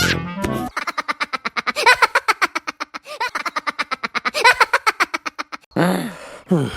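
Cartoon voice sound effect: a fast, stuttering chatter of short pitched pulses, about nine or ten a second, following a brief tail of music. Near the end come swooping, sliding vocal squeals.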